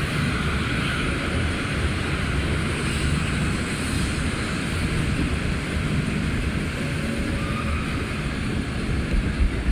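A car driving through a highway tunnel: steady road and engine noise with wind rush. There are a few low thumps near the end.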